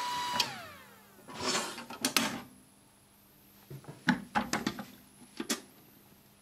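Zebra P320i card printer's motor whining steadily, then spinning down with falling pitch about half a second in, followed by a series of sharp clicks and knocks.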